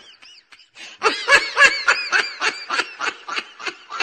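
High-pitched giggling laughter in rapid repeated bursts, with a brief pause about half a second in.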